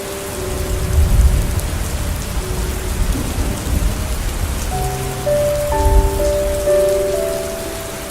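Steady rain falling, with a low rumble of thunder rolling through that swells about a second in and again around six seconds. Soft held music notes sound over the rain.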